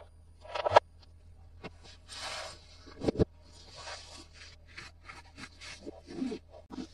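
Hands handling plastic toy packaging and toys: scattered rustling and crinkling with clicks and taps of plastic, two sharper clacks near the start and about three seconds in, and a few soft knocks near the end.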